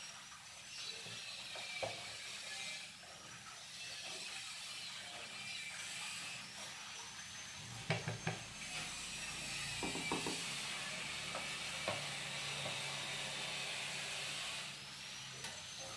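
A wooden spatula scraping and tapping against a plate and a frying pan while macaroni and cheese is served, with a few sharp clacks about halfway through, over a steady high-pitched hiss.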